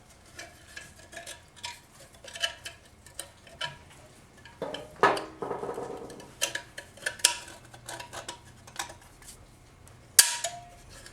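Steel snap ring and screwdriver clinking and scraping against the 4L60E transmission case as the case snap ring is worked into its groove: a string of sharp metallic clicks, with a louder ringing scrape about five seconds in and a sharp click near the end.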